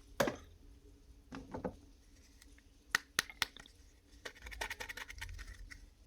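Hands handling plastic toys and their packaging: scattered sharp clicks and taps, two close together about three seconds in, then light scratching and rustling with a few more clicks near the end.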